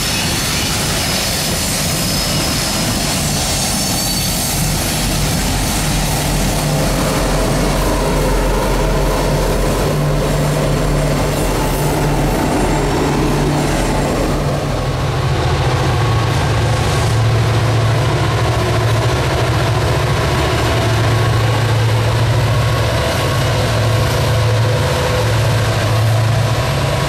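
Norfolk Southern freight train passing close, its wheels rolling steadily on the rails. From about halfway, a pair of SD40E helper locomotives go by and their diesel engines add a steady low drone.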